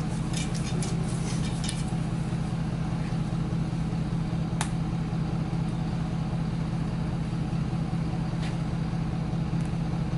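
A steady low hum, like an idling engine, runs under everything. Over it come small clicks and taps in the first couple of seconds, one sharp click about halfway, and a few faint ticks near the end, as the compound bow is handled.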